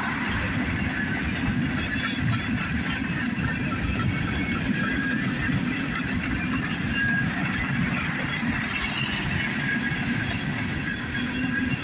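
Open hopper cars of a freight train rolling past: a steady rumble and clatter of steel wheels on the rail, with brief high-pitched wheel squeals now and then.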